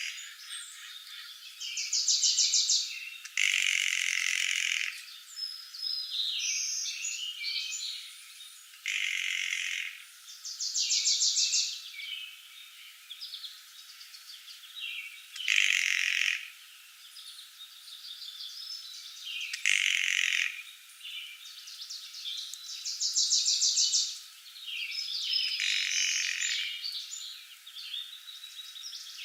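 Several songbirds singing in a woodland chorus: fast, rapid trills alternating with louder short song phrases every few seconds.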